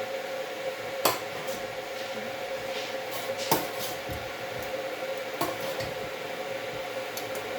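Pots and kitchen utensils clinking and knocking a few times, the loudest knock about three and a half seconds in, over a steady hum.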